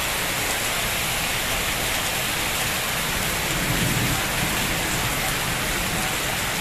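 Heavy rain pouring down, a dense steady hiss, with a brief low rumble about four seconds in.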